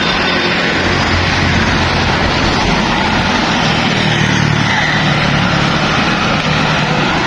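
Steady road traffic: engines and tyres of passing trucks, cars and motorbikes, with one vehicle's engine hum growing louder about four to five seconds in.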